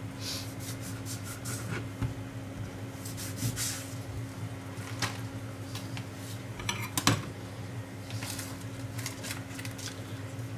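Kitchen knife cutting a lime on a plastic cutting board, then cutting iceberg lettuce on a ceramic plate: a run of short crisp slicing and scraping strokes with one sharp knock a little past the middle, over a steady low hum.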